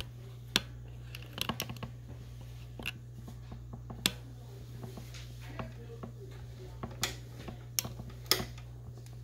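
Scattered light clicks and taps over a steady low hum. The clicks come in a cluster about a second and a half in, and the sharpest come near the end as a hand works the front of the Philips CDR 778 CD recorder.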